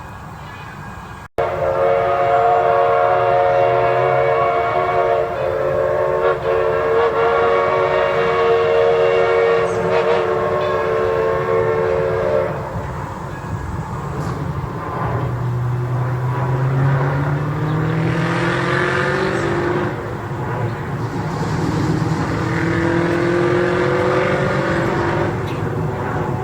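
Six-chime steam whistle on a 4-4-0 steam locomotive blowing one long steady chord of about eleven seconds, then two more blasts whose pitch slides upward as they sound, over the locomotive's steady running rumble.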